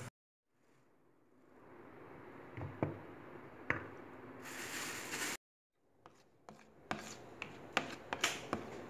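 Metal spoon clicking and scraping against a bowl as flour is mixed into a batter, with a run of sharp taps in the last few seconds.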